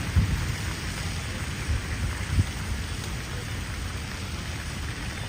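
Heavy rain falling steadily in a storm, with a low rumble and a few short low thumps in the first half.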